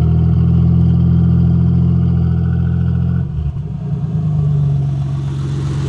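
Chevy Monte Carlo engine revved and held steady through a Flowmaster dual-exit muffler. It drops back to idle about three seconds in.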